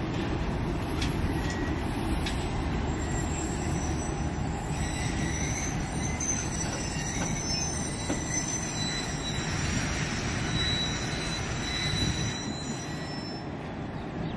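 Pakistan Railways passenger coaches rolling past close by: a steady rumble of steel wheels on the rails, with faint high-pitched wheel squeal and a few clicks over the rail joints.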